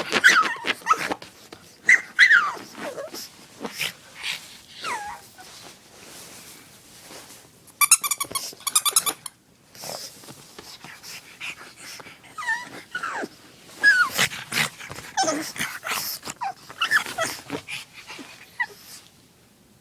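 Pug whining and whimpering in short cries that fall in pitch, over and over, begging for a chew toy. About eight seconds in comes a loud second-long run of quick squeaks.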